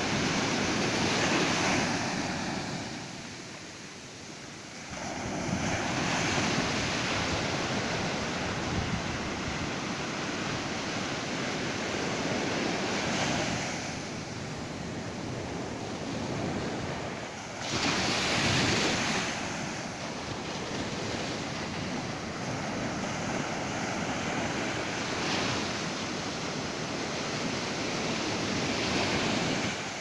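Atlantic surf breaking and washing up a sandy beach: a steady rush that swells and eases as each wave comes in, loudest about eighteen seconds in.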